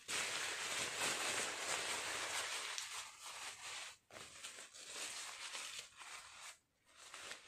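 Thin nylon reusable shopping bag rustling and crinkling as it is crumpled and folded by hand to be stuffed into its own small pouch. Louder for the first few seconds, then softer and broken by short pauses.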